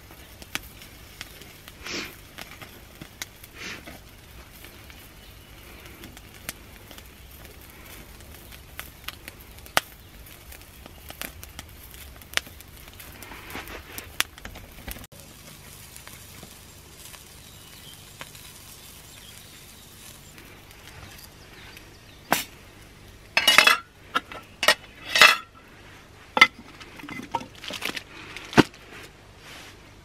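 Wood fire crackling with scattered pops in a small perforated metal box stove. Over the last several seconds comes a run of loud metal clinking and clattering of cookware and cutlery.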